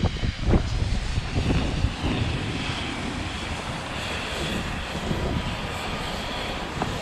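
Wind buffeting an action camera's microphone while riding downhill on a snowboard, a heavy gusty rumble for the first two seconds that settles into a steady rushing hiss, with the scrape of snowboards sliding over packed snow.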